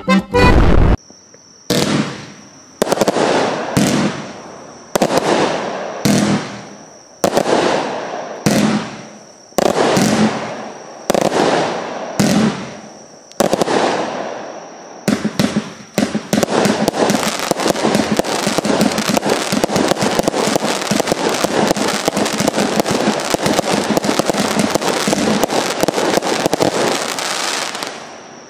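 Lesli Karneval Verbund 75-shot firework cake firing. Single shots go off about once a second, each a sharp bang with a fading crackle, then from about halfway through the shots come in a fast, unbroken barrage that stops shortly before the end.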